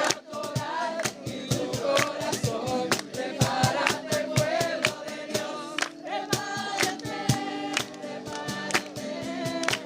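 Music: several voices singing together over a quick percussive beat.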